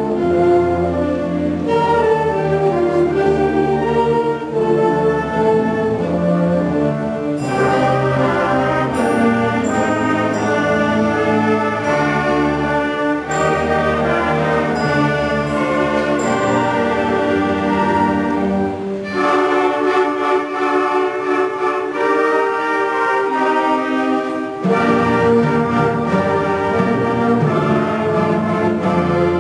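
Middle school concert band playing a piece, brass prominent. Past the middle the low instruments drop out for several seconds, leaving the higher parts, then come back in.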